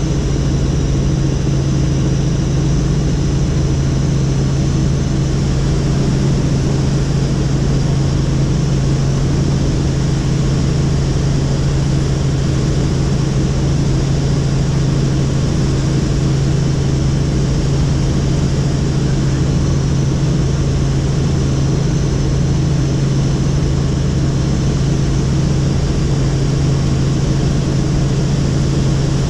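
Helicopter in flight: a loud, steady drone of engine and rotors with a constant low hum that does not change.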